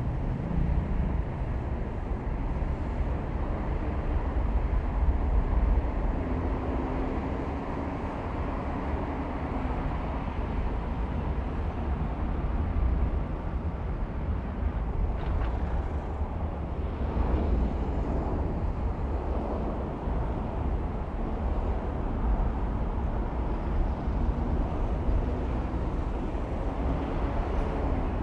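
Car driving on city streets: a steady low rumble of road and engine noise, with the sound of surrounding traffic.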